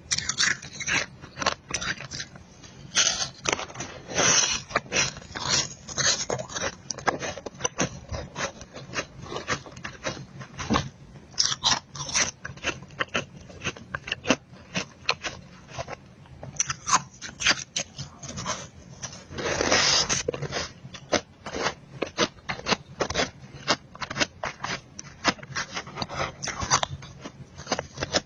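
Close-miked crunching of powdery freezer-frost ice being bitten and chewed: a rapid, uneven run of sharp crunches, several a second, with a few longer gritty crunches along the way.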